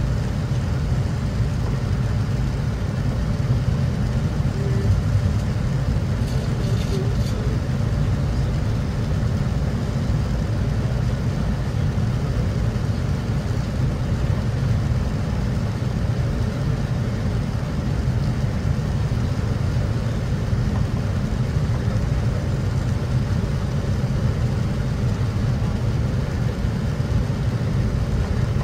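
Steady low rumble of engine and airflow noise inside the cabin of a Boeing 787-9 airliner in flight on its approach.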